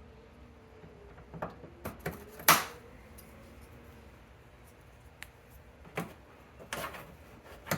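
Plastic push-pin retainer clips being handled and pushed into place: a series of sharp plastic clicks and knocks, the loudest about two and a half seconds in and a few more near the end.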